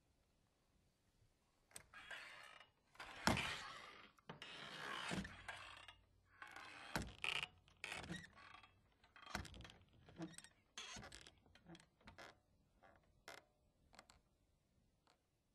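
Doors being moved: creaking and scraping as they swing on their hinges, with latch clicks and thunks as they knock shut, the loudest knocks about three, five and seven seconds in. The stretch begins after a short pause and the sounds thin out into a few scattered clicks near the end.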